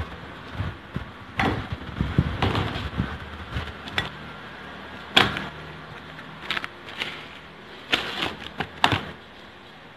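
Plastic cling wrap rustling and crinkling in irregular bursts as it is pulled from its box, torn off and pressed over a plate, with several sharp crackles in the second half.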